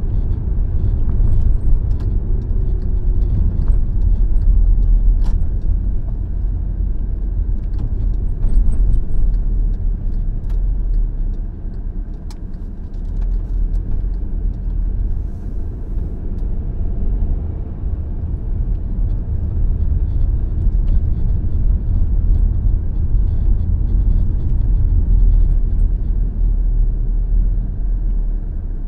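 Car driving along a road: a steady low rumble of tyre, road and engine noise, with a few light ticks and rattles.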